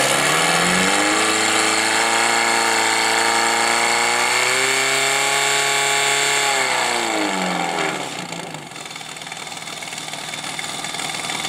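Portable fire pump's engine running hard while pumping water through the hose lines, its pitch climbing about a second in and holding high, then falling away about eight seconds in as the revs drop.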